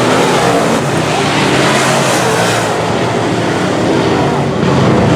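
Semi late model race cars running at speed around the oval, a pack of engines at full throttle, with the sound swelling briefly as cars pass by about two seconds in.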